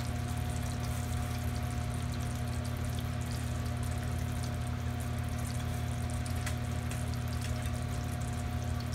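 Pineapple chili sauce simmering and sizzling in a frying pan, a steady hiss with faint scattered crackles, over a steady low hum.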